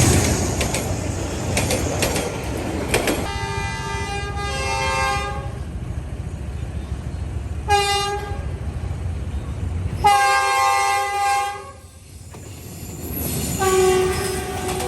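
D19E diesel-electric locomotive horn sounding four blasts, each a chord of several steady tones: one of about two seconds, a short toot, then two more long blasts. The first few seconds hold the rumble and clatter of a moving train.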